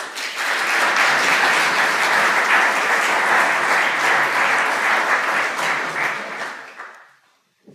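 Audience applauding, a steady sustained clapping that dies away near the end.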